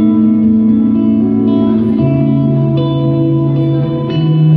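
Electric guitar played through a Line 6 HX Stomp multi-effects unit with heavy reverb and delay: long ambient notes that overlap and ring on. A new low note comes in about two seconds in and another just before the end.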